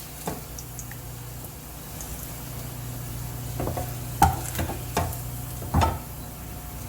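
A spoon scraping and knocking against a pan several times, mostly in the second half, over a faint sizzle of hot oil as fried onions are lifted out of it.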